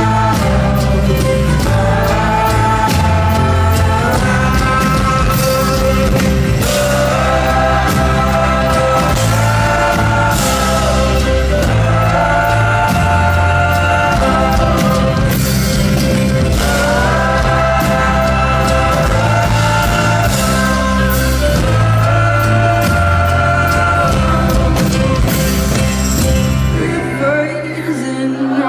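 Indie folk band playing live: acoustic guitar, drums and several voices singing long, held harmonies with a steady drum beat. Near the end the music drops away and the crowd starts to cheer and whoop.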